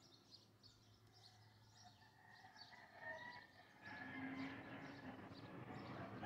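Faint farmyard ambience: small bird chirps, joined about four seconds in by chickens clucking softly.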